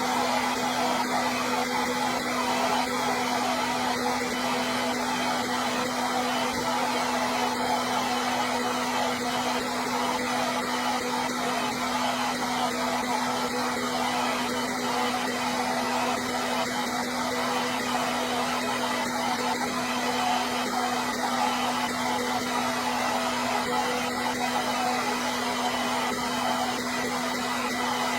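Electric hair dryer running steadily: a constant rush of blown air over a steady motor hum, with no change in speed.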